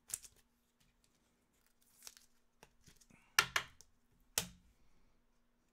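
Trading cards being flipped through by hand: light scrapes and clicks of card stock sliding, with two sharper snaps about three and a half and four and a half seconds in.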